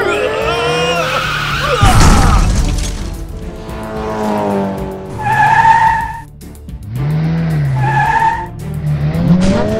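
Cartoon race-car sound effects over background music: a revving engine and squealing tyres, with a loud crash about two seconds in as the car smashes through the trackside wall. Further tyre squeals follow twice.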